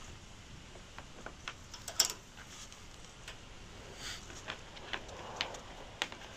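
About a dozen scattered light clicks and knocks, irregularly spaced, the loudest about two seconds in, over a faint steady hiss.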